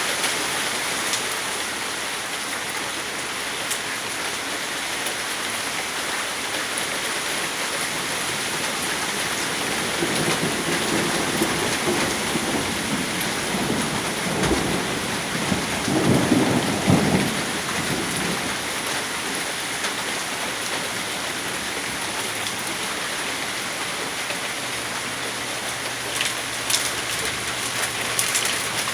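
Heavy rain and hail falling steadily during a thunderstorm. A low rumble of thunder builds about ten seconds in and is loudest a little past the middle.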